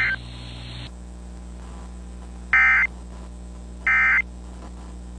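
Emergency Alert System end-of-message data bursts: short, harsh, warbling digital squawks, two of them about 1.3 seconds apart, with a third just starting at the end, marking the close of the weather radio alert. Before them, the weather radio's background hiss cuts off about a second in.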